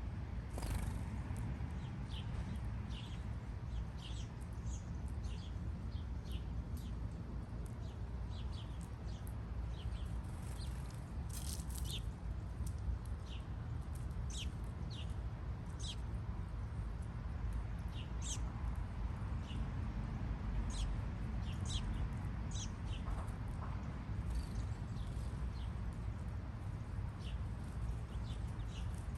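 Small birds chirping in short, high calls scattered irregularly, over a steady low rumble.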